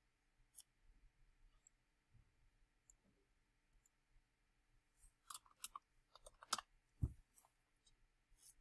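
Computer keyboard keys clicking as a short word is typed: a quick run of about a dozen clicks starting about five seconds in, with a duller knock near the end of the run. Otherwise near silence.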